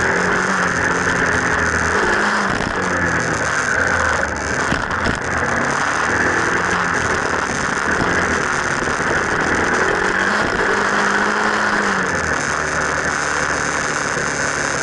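Motorcycle engine running under way, its note rising and falling twice with the throttle, under steady wind and road noise. Heard from an action camera mounted low on the front fork.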